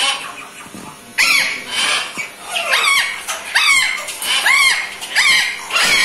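Caged parrot squawking over and over, about seven calls, each rising then falling in pitch, starting about a second in.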